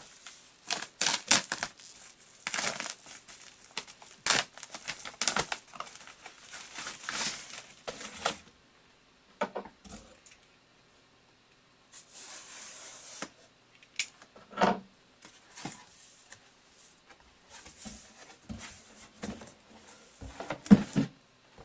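Packaging being unwrapped from a new 3D-printer build plate: irregular tearing, crinkling and rustling, with a short lull partway through.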